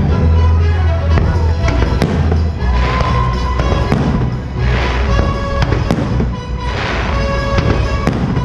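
Fireworks bursting with sharp bangs and crackling swells about every two seconds, over loud music with a heavy bass.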